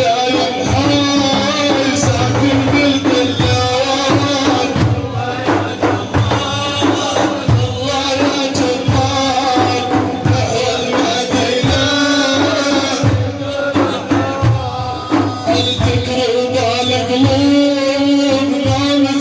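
Middle Eastern devotional music: hand drums beating a steady rhythm under a sustained, wavering melody.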